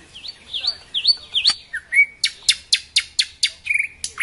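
Nightingale singing: a few short swooping whistled notes, then a loud run of sharp, evenly spaced notes about five a second, ending in a quick rattle.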